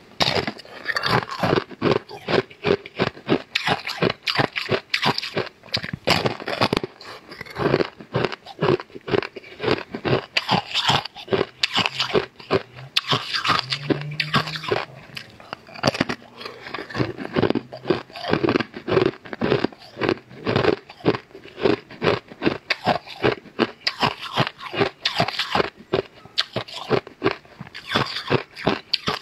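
Close-miked crunching and chewing of a crisp, gourd-shaped cookie: bites and chews come in a rapid, steady run of sharp crunches, several a second.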